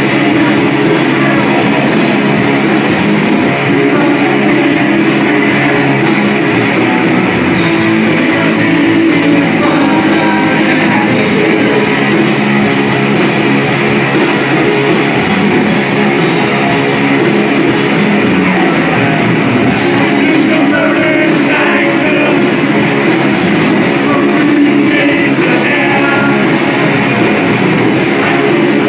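Live heavy rock band playing loud: electric guitars and drums, with a voice singing, heard from the audience floor.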